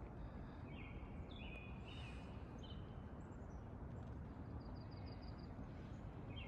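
Songbirds singing: short repeated phrases, then a fast high trill in the second half, over a steady low outdoor background noise.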